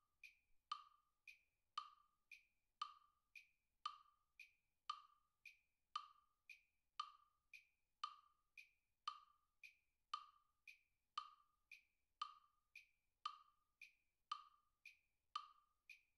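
Metronome app clicking steadily at about 115 beats per minute, alternating a lower and a higher click.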